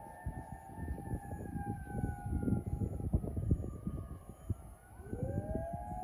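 Several fire engine sirens wail at once, their pitches overlapping and slowly sliding down and up. One siren winds up again about five seconds in. Rough, gusty low noise runs underneath.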